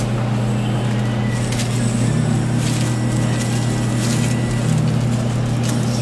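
A steady low machine hum with a few short scrapes and clicks of a metal gelato spatula working gelato in a tray.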